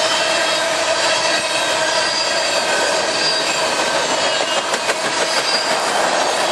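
Empty steel coal cars of a freight train rolling past: a steady rumble and clatter of wheels on rail, with a held metallic squeal over it and a quick run of clicks about five seconds in.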